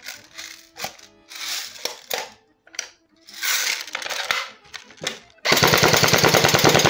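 Airsoft M3 grease gun replica handled with scattered clicks and knocks, then, about five and a half seconds in, firing a long full-auto burst: a loud, rapid, even rattle of shots.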